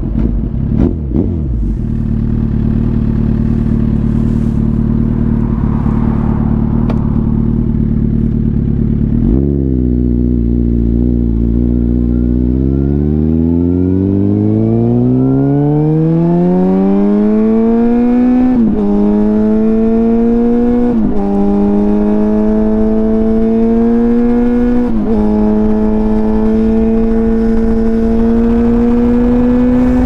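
Suzuki GSX-R1000 inline-four engine running steadily at low revs, then accelerating with a long rise in pitch, with three quick dips in pitch as it shifts up through the gears, then holding a steady higher note while cruising.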